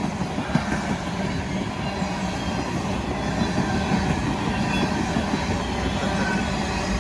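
An empty freight train rolling past: a steady rumble of wheels on rail, with irregular clacks and rattles.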